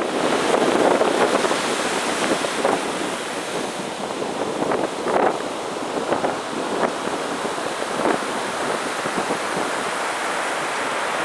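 Ocean surf breaking and washing up the beach: a steady rushing hiss with short crackling bursts of foam, a little louder in the first second or two.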